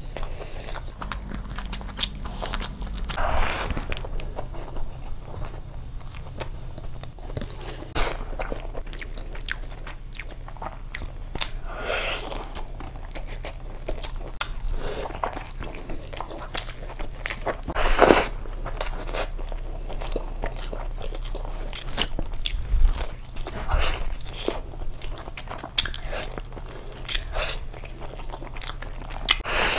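Close-miked eating sounds of a man biting meat off a roasted chicken leg and chewing it, with many small wet mouth clicks. Louder bites come every few seconds, the loudest about eighteen seconds in.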